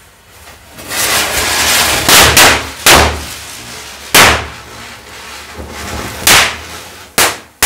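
Diwali firecrackers set off one after another by a burning matchstick chain. A fizzing hiss of burning matches and fuses builds about a second in, then about seven sharp bangs go off over the next several seconds, three of them close together near the start and two close together at the end.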